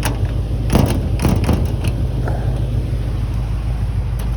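A few sharp knocks and clunks, about a second in, from a metal door being pushed and worked to find out why it won't close flush. A steady low rumble runs underneath.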